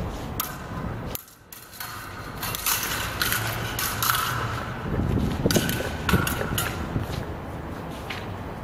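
Steel rapiers and daggers striking and scraping against each other in a run of sharp, irregular clicks, some leaving a short ring, over wind rumbling on the microphone.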